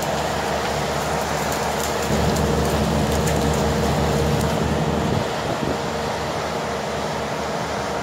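Crawler bulldozer's diesel engine working under load as it pushes its blade through dense brush. It runs louder from about two seconds in, then eases a little after about five seconds.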